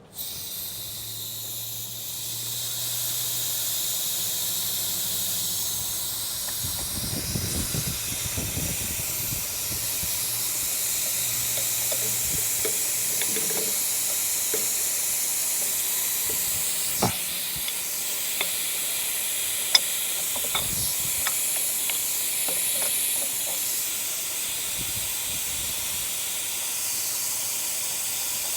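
Steady hiss of compressed air escaping from the truck's air system, starting suddenly, with a few sharp metallic clicks from tools.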